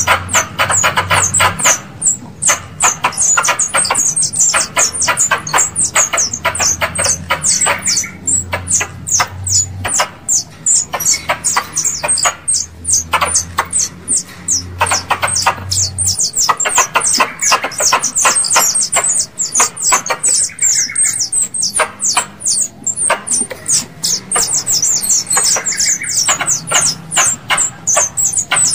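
Squirrel lure call: sharp, high chips repeated several times a second in long runs with short breaks. A low hum underneath stops about sixteen seconds in.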